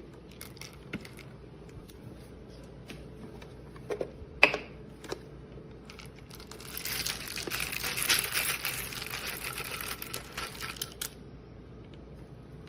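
Whole coffee beans being tipped out of a Bodum Bistro electric burr grinder, rattling out for about four seconds. Before that come a few clicks and a sharp knock from its plastic parts being handled.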